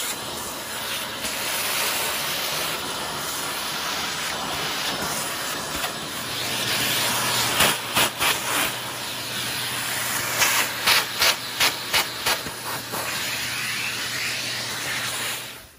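Shop-Vac wet/dry vacuum running, its hose nozzle sucking sanding dust off a wooden door: a steady loud rushing hiss, with bursts of quick clicks and rattles in the second half.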